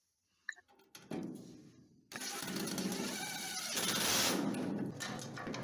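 Cordless drill-driver running a self-tapping screw into sheet-metal floor pan panels, its motor pitch rising and falling as the screw bites. A few short knocks come in the first couple of seconds before the drill runs.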